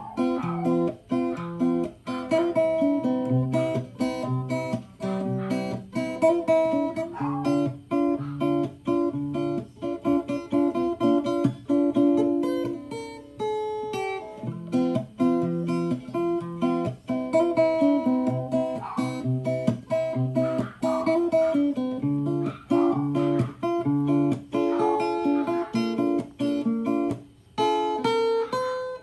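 Background music played on acoustic guitar, picked and strummed chords over a moving bass line.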